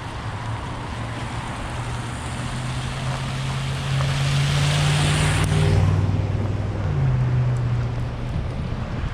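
A motor vehicle drives past close by: a low engine hum and tyre noise swell to a peak about five to six seconds in, then ease off as the engine note drops.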